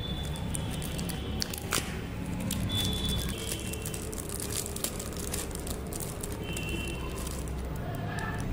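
Foil candy wrapper and a thin clear plastic bag crinkling and tearing as they are pulled open by hand: many quick sharp crackles and rustles.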